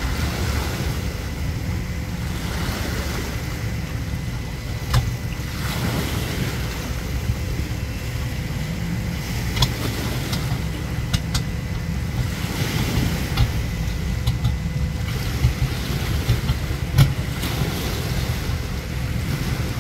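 Steady low rumble of wind on the microphone over lapping water, with a few sharp clicks.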